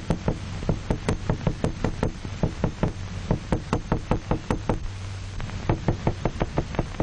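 Small hammer knocking rapidly on a surface, about five knocks a second, with a short break a little before five seconds in; the knocking is a sound stimulus for an isolated dog's head. A steady low hum runs underneath.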